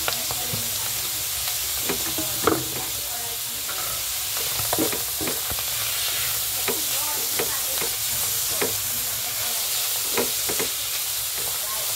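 Sliced mushrooms and garlic sizzling in oil in a nonstick pan, stirred with a silicone spatula that scrapes and knocks against the pan every second or so.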